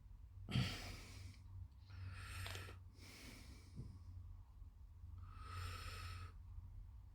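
A person breathing close to the microphone: four breaths of about a second each, over a faint steady low hum.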